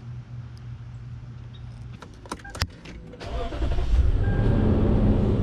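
A few sharp clicks, then about three seconds in a motor in the Lexus GX460 starts up and runs with a loud, low, steady hum.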